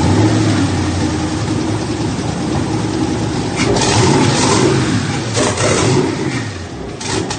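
Twin-turbocharged 5.3-litre LS V8 in a jet boat running at its first fire-up, still untuned, with two brief revs in the second half.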